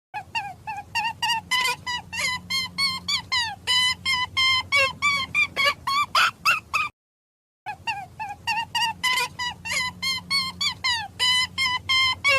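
An animal's rapid series of short pitched calls, about four to five a second, some sliding down in pitch, over a faint low hum. The same stretch of calls stops about seven seconds in and plays again after a brief gap.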